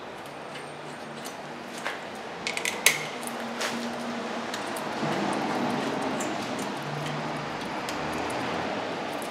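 Sharp metallic clinks of steel brake parts being handled as the caliper mounting bracket is set over the rotor and its bolts started by hand, the loudest clink about three seconds in, with a short ring. A steady background noise grows louder about halfway through.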